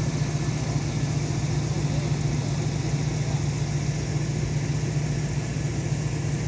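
Truck engine idling steadily with a constant low hum.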